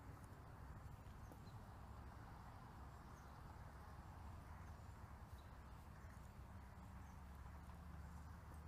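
Near silence: faint steady outdoor background rush, with soft footsteps walking.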